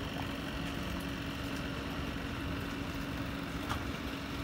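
An engine idling steadily, a constant hum with a low rumble beneath it, and one light knock near the end.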